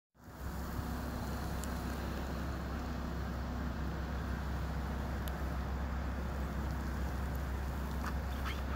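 Steady low rumble of city street traffic, with the drone of an engine running under it.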